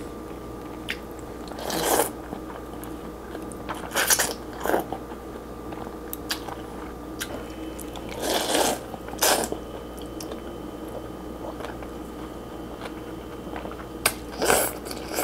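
A person slurping rice vermicelli noodles in curry broth from chopsticks, with chewing in between. There are several short slurps a few seconds apart, two close together near the end.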